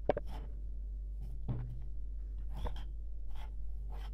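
Spoon scraping and clinking against a glass bowl while stirring a thick mixture: short scrapes at irregular intervals, a sharper clink just after the start, over a steady low hum.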